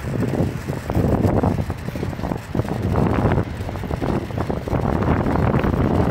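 Wind buffeting the microphone of a handlebar-mounted camera on a moving bicycle: a low, unsteady rush that keeps swelling and dipping.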